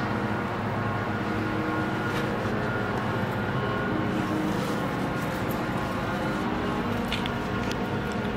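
A steady mechanical drone with a low hum and a few held tones, with a couple of faint light ticks.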